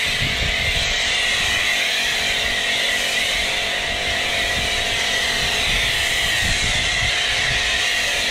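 Pressure washer running steadily, its motor and pump humming under the strong hiss of snow foam spraying from an Autoglym Polar snow foam lance.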